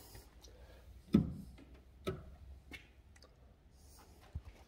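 Four soft knocks and thumps at uneven intervals, the loudest about a second in.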